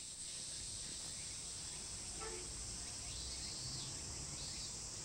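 Steady high-pitched chorus of insects chirring in the trees.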